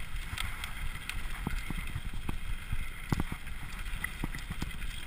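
Mountain bike riding fast down a dirt singletrack: a steady rumble of tyres on the trail and wind on the microphone, broken by irregular knocks and rattles as the bike runs over the rough ground.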